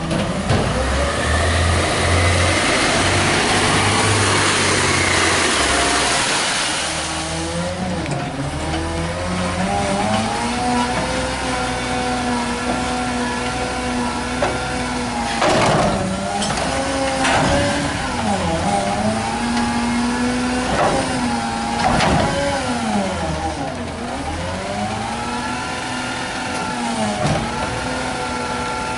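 AutoCar ACX garbage truck with a McNeilus Meridian front-loader body, its compressed-natural-gas engine revving up and down to drive the hydraulics while the arms and the Curotto-Can lift and dump a cart. A whine that repeatedly dips and climbs again with the revs runs under it, and there are a few sharp knocks from the mechanism.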